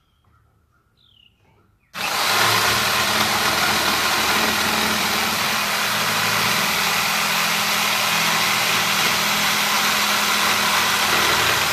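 Corded electric power saw cutting through a pine board. The saw starts suddenly about two seconds in and runs with a steady, even whine.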